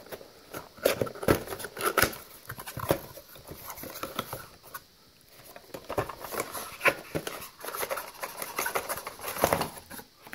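Cardboard retail box of an Intel Core i5 processor being opened and its contents pulled out: irregular tapping, scraping and rustling of cardboard, with a short lull about halfway through.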